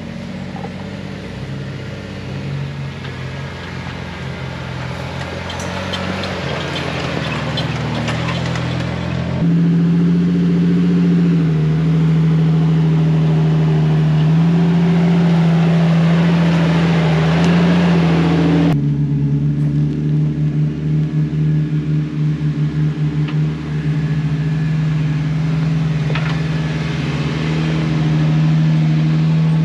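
Off-road Jeeps crawling up a rough dirt trail one after another, their engines running steadily at low speed close by. The engine sound changes abruptly about a third and about two thirds of the way through.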